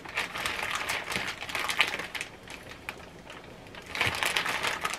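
Quick, rapid scraping strokes at a solid chunk of green seasoning, a run of them over the first two seconds, a quieter gap, then a short run again about four seconds in.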